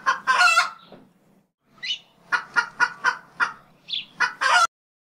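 Chicken squawks and clucks, used as a sound effect: a long squawk, a rising call, a quick run of five short clucks, then a last loud squawk that cuts off abruptly.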